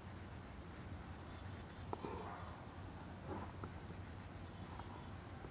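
Faint outdoor background: a steady high drone of insects over a low hum, with a few faint ticks.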